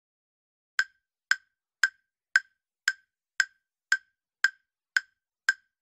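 Countdown timer sound effect ticking: about ten short, evenly spaced woodblock-like ticks, roughly two a second, starting just under a second in.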